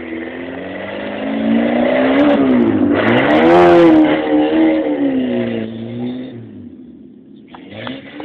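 Peugeot 205 hatchback engine revving hard as the car is driven across grass. The engine note climbs, dips once about three seconds in and climbs again. It is loudest with a short hiss as the car passes closest, then falls in pitch and fades as it drives away.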